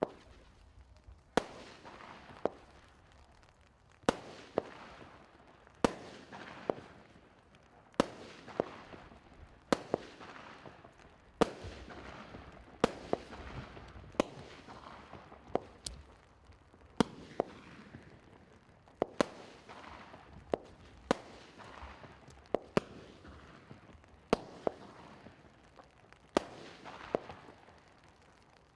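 A Category 2 (garden) firework cake, Washington Wonder, firing a long string of single shots at uneven intervals of roughly one to two a second. Each shot is a sharp crack followed by a short fading hiss.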